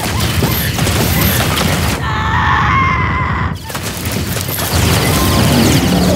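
Action-film sound effects mixed over music: rumbling, crashes and blasts. A shrill wavering tone comes in about two seconds in and is cut off abruptly about a second and a half later.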